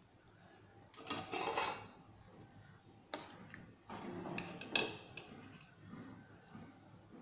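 Perforated steel skimmer stirring potato slices in a steel pot of boiling water. A scraping rustle comes about a second in, then several sharp metal knocks and clicks against the pot between about three and five seconds in.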